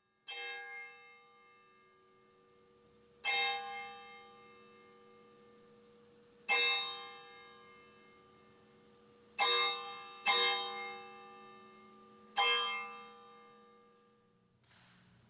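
A church bell tolling six times, each stroke ringing out and slowly fading. The strokes come about three seconds apart, with two close together about two-thirds of the way through.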